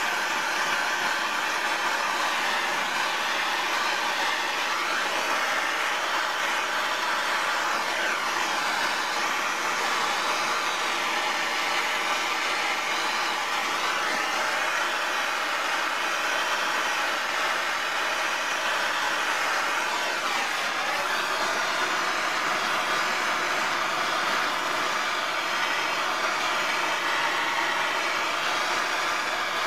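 Handheld propane torch burning with a steady hiss, its flame held on a knife handle to heat and darken it and warm the pine-pitch glue.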